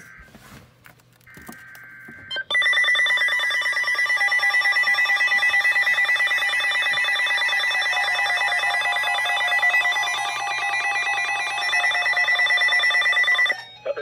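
A First Alert weather alert radio sounds for a severe thunderstorm warning. First comes a short burst of warbling data tones, then from about two and a half seconds in a loud, high-pitched alarm pulses rapidly, and it stops abruptly near the end.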